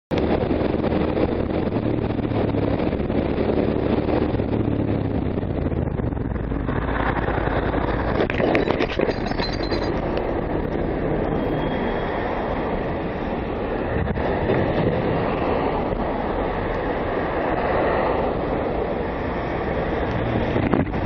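Steady rumble of a vehicle on the move, engine and road noise, with a few brief clicks about halfway through.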